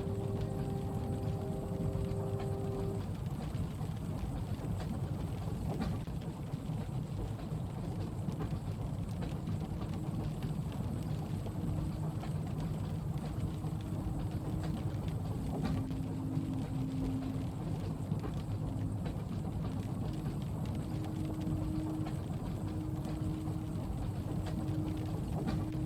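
Train carriage ambience: a steady low rumble of the train running, under a soft even hiss of rain on the window. A humming tone with overtones stops about three seconds in, fainter hums come and go later, and there are a few light ticks.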